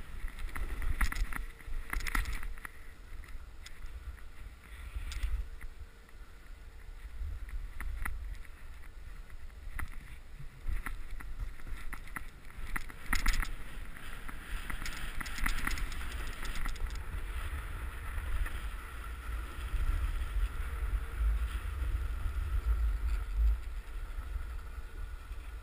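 Wind rumbling on the microphone of a camera worn by a snowboarder riding fast downhill, with the hiss and scrape of the board on snow and scattered knocks.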